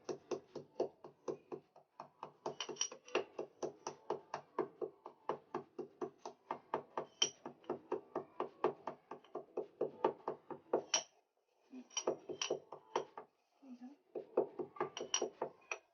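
Black peppercorns being coarsely pounded with a pestle, a quick steady run of knocks at about four to five strokes a second, with two short breaks near the end.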